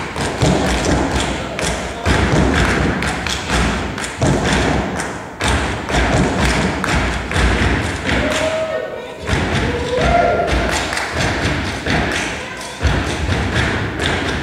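Step dancers' feet stomping on a stage in repeated heavy thumps, with short shouted calls from the performers around the middle.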